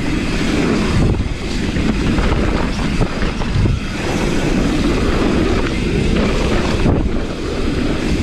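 Mountain bike descending fast on a dirt trail: wind rushing over the camera microphone together with the tyres rolling and the bike rattling over bumps, in a steady loud rush dotted with small knocks.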